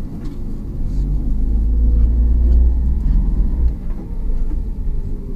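Car's engine and road rumble heard from inside the cabin while driving slowly: a low, steady rumble that swells in the middle and eases about four seconds in.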